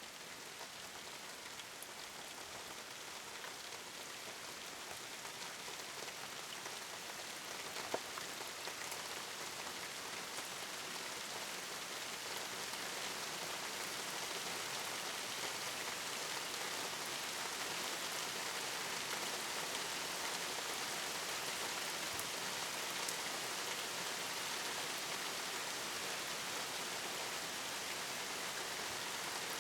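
Rain falling steadily as an even hiss, growing louder over the first half, with a single sharp tick about a quarter of the way through.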